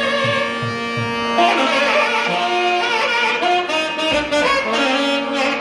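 Saxophones playing a melody over a steady drone from a shruti box, with a few low drum strokes in the first second. The melody moves from note to note from about a second and a half in.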